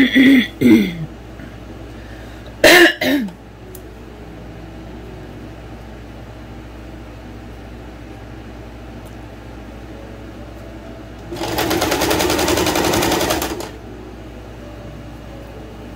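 Domestic electric sewing machine stitching in one burst of about two seconds near the end, a rapid even needle rhythm, while sewing through a shirred waistband gathered with elastic thread. Before that come two short, loud sounds that fall in pitch, in the first few seconds.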